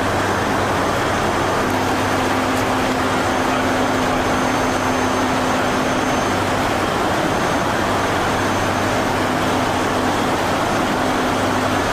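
Steady, loud drone of the Airbus A400M's four Europrop TP400 turboprop engines: an even rush of noise with a low hum and a steadier higher tone running through it.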